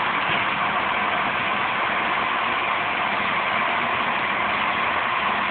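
Steady hiss of steam escaping from a standing steam locomotive, the GS&WR J15 class 0-6-0 No. 186.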